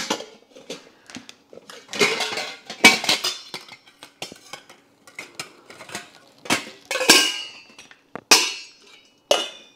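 Brass pots and their brass lids clinking and clanking as they are set one on top of another into a stack. There are several sharp metal strikes, some followed by a brief ring.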